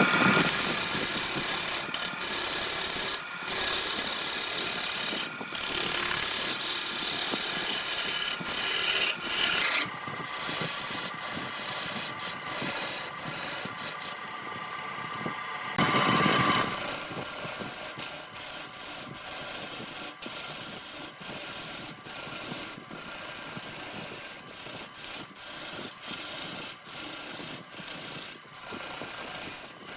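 Wood lathe running, with a hand tool rasping against the spinning redwood workpiece. There is a steady faint motor tone under the scraping, and over the second half the tool is lifted off and pressed back on many times in short, repeated passes.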